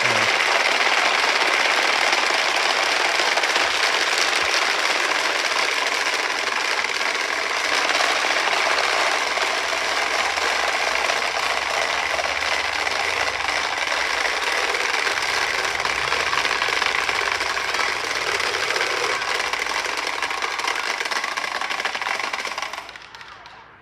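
Wooden Easter rattles (Klappern) being cranked together in a steady, dense, loud clatter, the Holy Week rattling that stands in for the silent church bells. It dies away in the last second or so.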